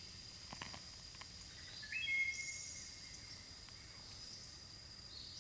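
Insects droning on one steady high note, with a short bird call about two seconds in.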